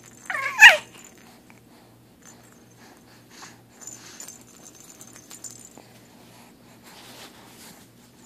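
Infant's loud high-pitched squeal that falls in pitch, just under a second in, followed by faint soft vocal noises.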